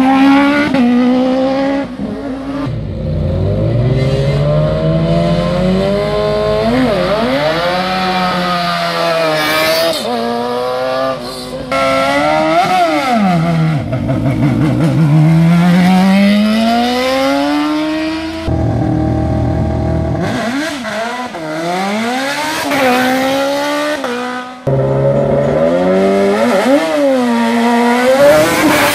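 Racing car engines revving hard and accelerating away from a standing start, several cars in turn. The engine pitch climbs and drops again and again through the gear changes, with abrupt jumps from one car to the next.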